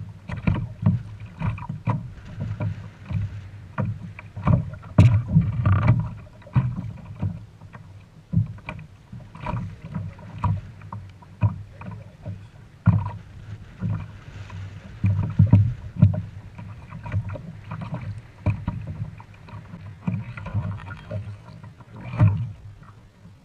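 Irregular knocks and low thumps on a plastic fishing kayak, several a second, while a pescadilla (weakfish) is landed on the line and handled aboard.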